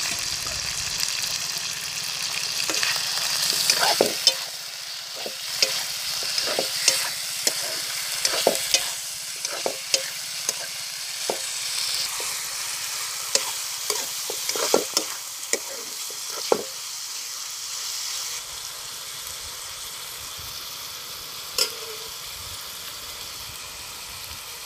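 Pork pieces sizzling in hot oil in an iron karahi (wok), stirred with a steel ladle that knocks and scrapes against the pan. The knocks come thick and fast through the first two thirds, then it is mostly the steady sizzle.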